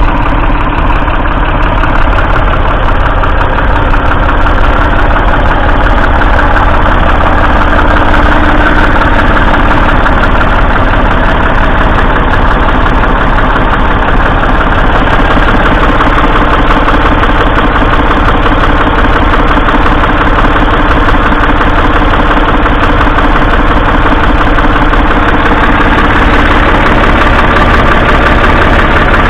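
Ford 3000's 2.9-litre three-cylinder diesel tractor engine running steadily and loudly, its rapid firing beat unchanged throughout.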